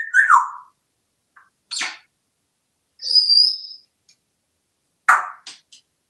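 African grey parrot calling and whistling in short separate bursts: a falling whistle at the start, a brief rasp just before two seconds, a high whistle held for under a second about three seconds in, and a few short clicks near the end.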